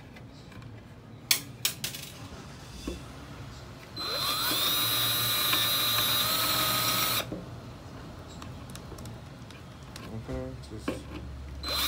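A 20-volt cordless drill spins up with a rising whine and runs for about three seconds, boring a hole through a thin wooden board, then stops. A few sharp clicks come before it, and the drill starts again near the end.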